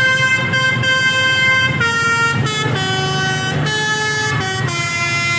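Telolet Basuri multi-tone bus horn playing a tune: one long note for almost two seconds, then a run of shorter notes stepping mostly downward in pitch. A low steady hum runs underneath.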